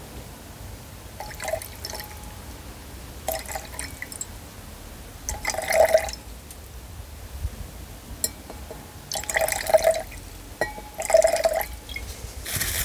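Nitric acid glugging out of a tilted bottle into a glass beaker of urea solution, in about six separate gurgling spurts a second or two apart as air bubbles back into the bottle.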